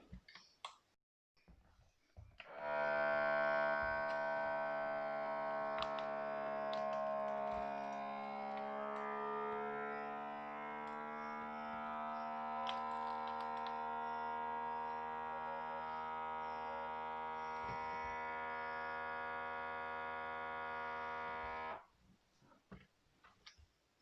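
A few light clicks, then a vacuum sealer's pump motor starts up and runs with a steady hum while drawing the air out of the bag. Its pitch sags a little over the first several seconds, then holds until it cuts off abruptly near the end.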